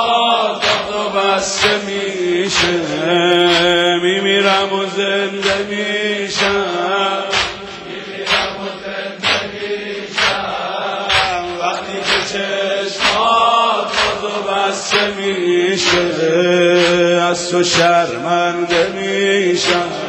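Male voices chanting a Persian noha, a Shia mourning lament, over sharp beats at a steady pace of about one a second: the mourners' rhythmic chest-beating (sineh-zani).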